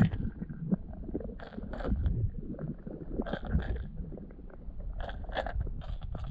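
Muffled underwater sound picked up by a camera submerged in a swimming pool: a low rumble of water with scattered clicks and several short crackling bursts.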